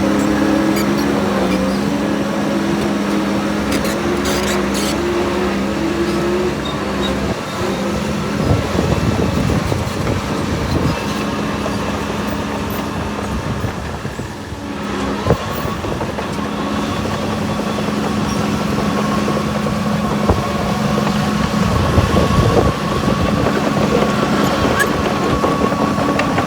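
Heavy diesel earthmoving machinery running steadily, with scattered knocks and clatter. A steady high whine comes in about halfway through.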